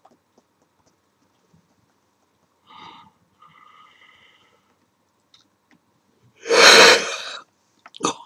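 A man sneezing. A held 'ah' comes with his mouth wide open, then a loud sneeze about six and a half seconds in, and a second short, sharp burst of breath just before the end.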